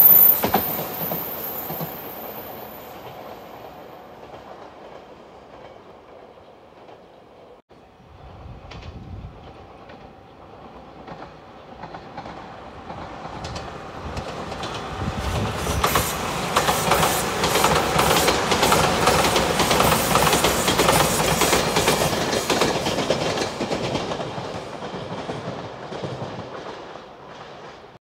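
JR Shikoku 8000 series limited express electric train, in white Anpanman livery, passing and moving away, its wheels clacking over the rail joints. After a brief break about eight seconds in, a second 8000 series train approaches, passes loudly through the middle, and fades away toward the end.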